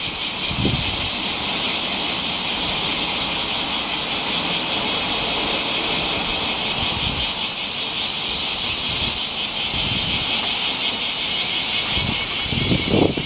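Bear cicada (kumazemi, Cryptotympana facialis) singing: a loud, steady, high buzzing with a fast pulsing throb.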